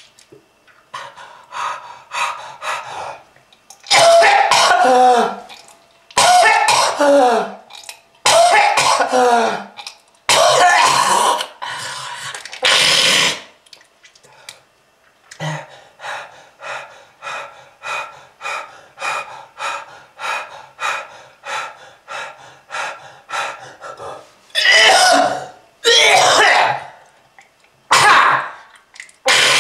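A person coughing hard and repeatedly, presented as a smoker's cough from lung disease. It starts with a few light coughs, then comes a series of long, loud hacking coughs whose voice drops in pitch, then a run of short quick coughs about two a second, and it ends with several more heavy coughs.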